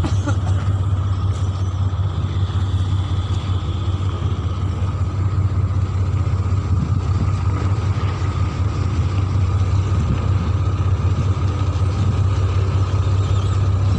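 Heavy dump truck's diesel engine running steadily, a loud even low drone with a faint steady whine above it.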